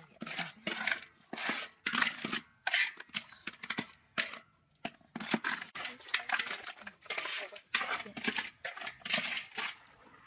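Quick, irregular scraping and clattering of a spatula stirring whole catfish and snails in chilli curry in a pan, followed after a short lull by the sounds of people eating the curry.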